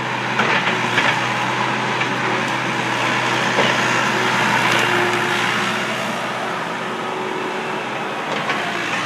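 John Deere skid steer engine running steadily under load, with a few sharp cracks about half a second in, one second in and three and a half seconds in.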